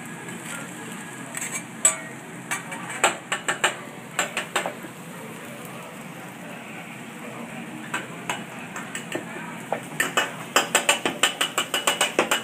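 Metal spatula clacking and scraping on a hibachi teppan griddle, with a low sizzle of food frying underneath. About ten seconds in the clacks turn into a fast, regular clatter.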